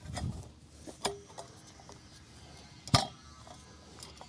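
Metal trampoline frame tubes knocking and clinking as they are handled and pushed together, with a few separate knocks and the loudest, sharp clank about three seconds in.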